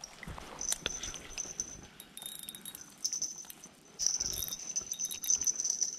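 Insects trilling in a high, steady note that comes and goes, with a few soft clicks and knocks of handling close by.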